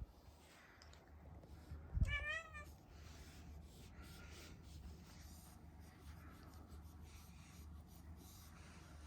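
A domestic cat meows once, a short wavering call about two seconds in, starting with a low bump; otherwise only a faint low hum.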